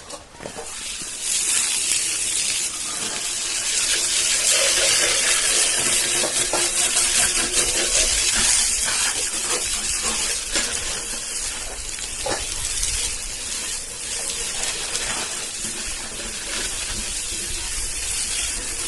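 Water spraying steadily onto a motorcycle as it is washed down, a continuous hiss starting about a second in.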